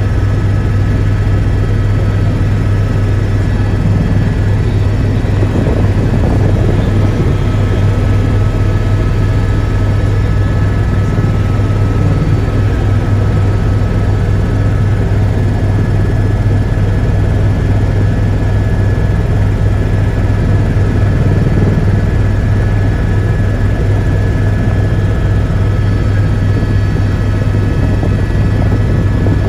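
Helicopter in flight heard from inside the cabin: a loud, steady drone with a deep hum and a faint high whine on top, unchanging throughout.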